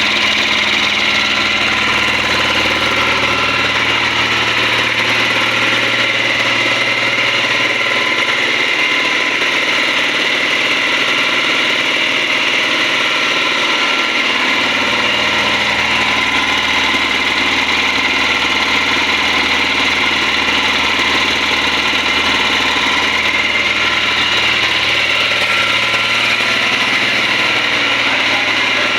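Yanmar C220 marine air compressor running steadily with a loud, even machine drone.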